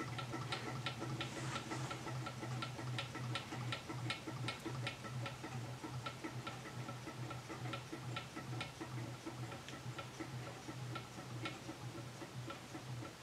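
Brass beam Stirling hot-air engine running on after its burner is removed: its mechanism ticks regularly, about three ticks a second, over a low steady hum. The ticks grow fainter toward the end as the engine coasts down without heat.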